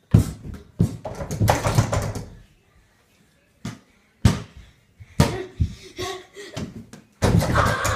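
Mini basketball shot at an over-the-door hoop, knocking against the backboard and door, then bouncing several times on a tile floor.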